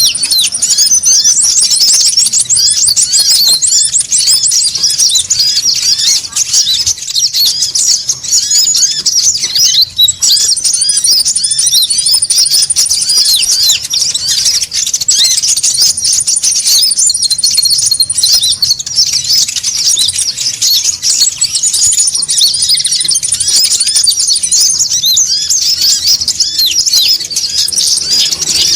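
Noisy chorus of konin birds chattering: dense, overlapping high-pitched chirps without a break, with a thin, very high trill that comes in and out every few seconds. A bird-lure (pikat) recording used to call in wild konin.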